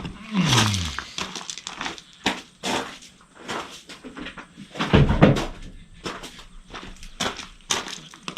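Metal wrenches clinking and clattering as they are sorted through and handled, a string of short sharp knocks with a heavier thump about five seconds in.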